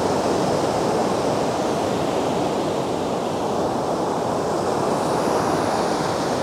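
Ocean surf breaking and washing up a sandy beach, a steady rush, with wind on the microphone.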